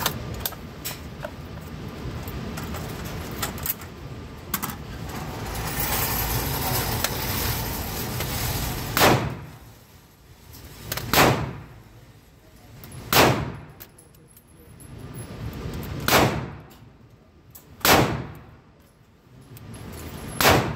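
Indoor shooting range: six single gunshots, about two seconds apart, in the second half, each with a short echo. Before them comes a stretch of rustling and handling noise.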